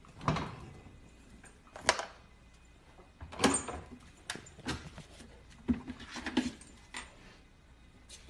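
A husky puppy's paws and body knocking and scraping against the plastic inside of an open refrigerator as it climbs in and lies down: about ten scattered short knocks.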